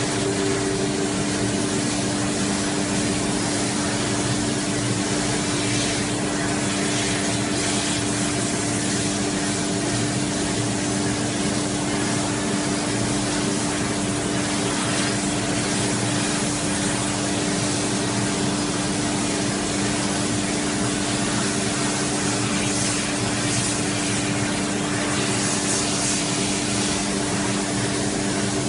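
CNC laser cutting machine running: a steady hiss of air over an even, low hum.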